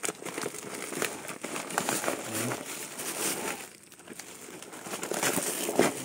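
Black plastic bag wrapping and the plastic cat food sack inside it crinkling and rustling as they are handled and pulled open. The crinkling goes quieter for a moment a little past the middle, then picks up again.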